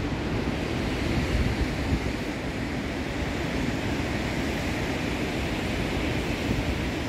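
Wind buffeting the phone's microphone in gusts over a steady rushing noise.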